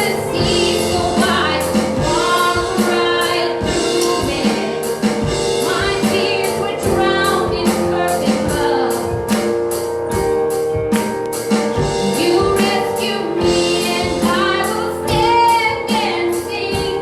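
Live church worship music: a band with singers, a steady beat with tambourine-like hits under sustained keyboard tones.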